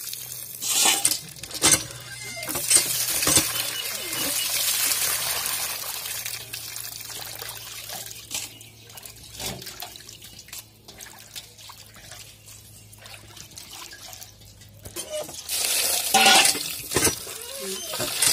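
Water from a hand pump pouring and splashing into a stainless-steel bowl of cut fish pieces, with clinks and sloshing as a hand rubs the fish clean. The pouring eases off for several seconds in the middle while the fish are swished in the water, then gushes in again near the end.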